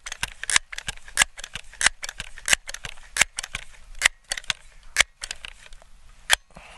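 Crosman 1322 multi-pump pneumatic pistol being pumped up for a ten-pump shot: repeated sharp clicks and clacks of the pump lever opening and closing, roughly one to two a second, spacing out towards the end.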